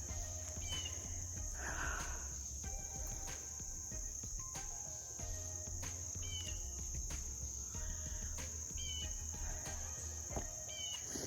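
A steady, high-pitched chorus of crickets, with a few short bird chirps at intervals.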